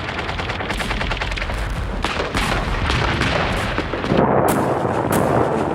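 Battle sounds of gunfire: a rapid burst of machine-gun fire, then scattered louder shots, and a heavy rumbling blast about four seconds in, followed by two sharp shots near the end.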